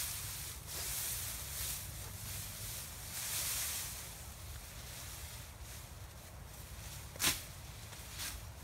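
A machete swishing through and cutting long grass in several strokes over the first few seconds, with the grass rustling, then fainter rustling. One sharp click comes about seven seconds in.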